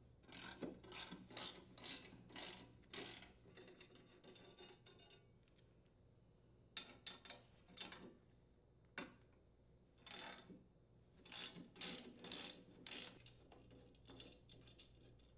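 Socket ratchet clicking in short runs as the lawn mower's blade mounting bolts are unthreaded, with a pause about halfway through.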